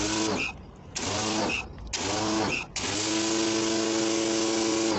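Pressure washer spraying water in short bursts as the trigger is squeezed and released, its motor and pump whining up to speed at each start over the hiss of the spray. Three short bursts, then the trigger is held and it runs steadily from about three seconds in.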